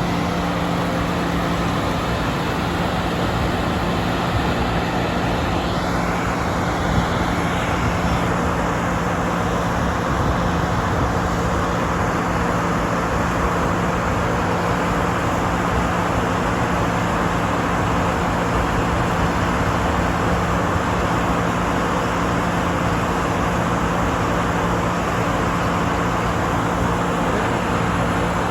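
New Holland CR9080 combine harvester running steadily while harvesting: a constant engine drone.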